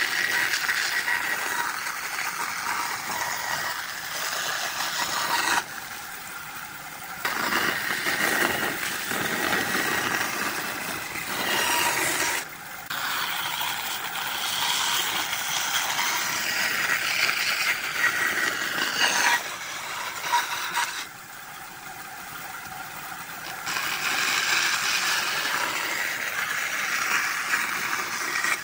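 Bandsaw cutting through a pine board, the blade rasping through the wood over a steady whine. The cutting noise falls away a few times, leaving the saw running more quietly before the next cut.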